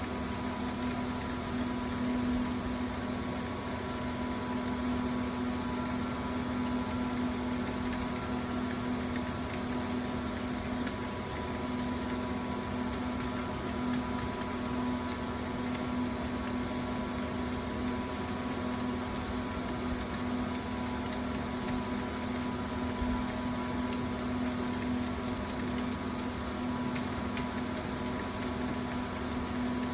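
A steady machine hum with a strong low held tone and several higher tones over a hiss, unchanging throughout, with no keystroke clicks.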